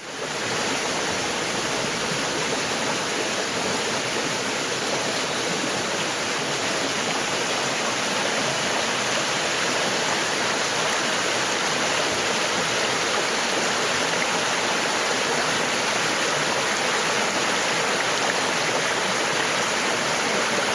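Small river running over granite boulders and little waterfalls, a steady rush of white water.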